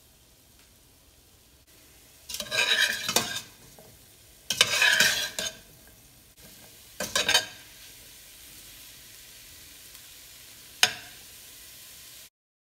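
A spatula stirring and scraping fried potato strips in a stainless steel pot, in three bouts, over a steady low sizzle of frying. Near the end comes a single sharp tap.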